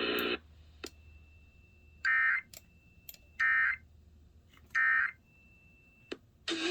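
Emergency Alert System end-of-message code: three short bursts of digital data tones, about 1.3 seconds apart, marking the close of the warning. Music starts near the end.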